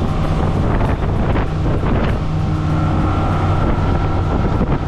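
Motorboat engine running steadily, with wind noise on the microphone. A steady low hum with a higher whine that becomes clearer about halfway through.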